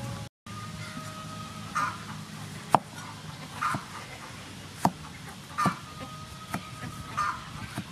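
Steel cleaver slicing through tomatoes and striking a thick wooden chopping block, a few sharp knocks a second or two apart.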